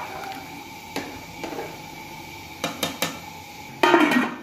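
Metal utensils clink against a metal cooking pot a few times. Near the end a metal lid clatters down onto the pot, covering it.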